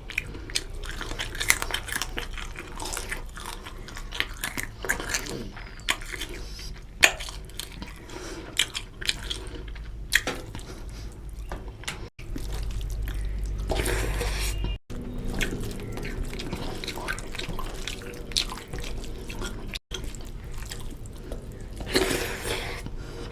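A person eating chicken curry with rice close to the microphone: wet chewing and smacking with many sharp mouth clicks.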